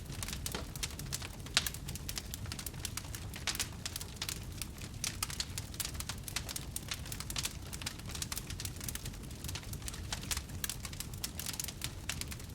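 Wood fire burning, with dense irregular crackling and popping over a low steady rumble of flames.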